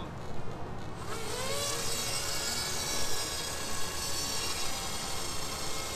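FPV quadcopter's brushless motors and propellers spinning up about a second in with a rising whine, then holding a steady high-pitched buzz at full throttle while towing a skateboarder.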